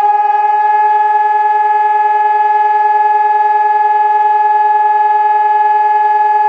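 Civil defence siren sounding a loud, steady tone at a held pitch, during a siren test.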